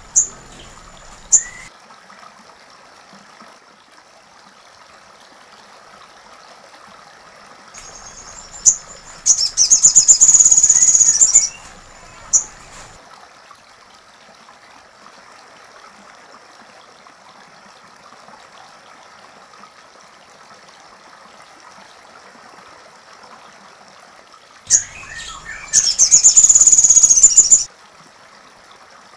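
A sogon (crested jay) gives two loud, high, rapid rattling calls of about two seconds each, the first about nine seconds in and the second near the end. A few short sharp single notes come between them.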